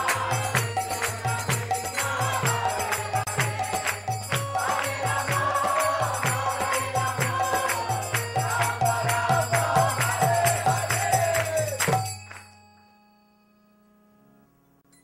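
Devotional group chanting (kirtan): voices singing over a steady beat of drum strokes and jingling hand cymbals. The music stops abruptly about twelve seconds in and near silence follows.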